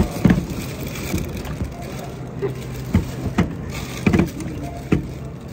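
Aluminium drink cans knocking and clinking against each other and the counter as they are handled, in a handful of sharp knocks over a steady low hum.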